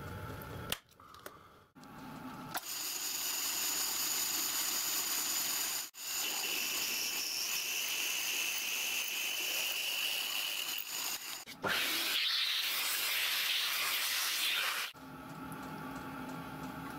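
Pillar drill boring into a steel tool-post block held in a machine vice: a hissing, scraping cutting noise with a steady whine from the bit, broken off and restarting abruptly several times, loudest about twelve to fifteen seconds in, with the drill's motor hum near the end.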